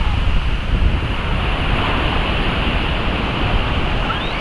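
Sea surf washing steadily on the shore, with wind buffeting the microphone in a low rumble.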